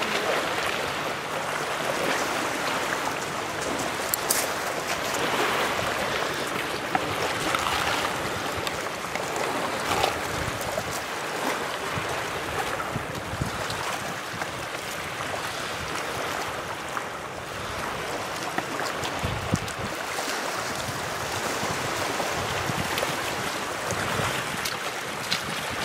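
Small wind-driven waves lapping and breaking along the shoreline, mixed with a steady rush of wind, and a few faint clicks scattered through.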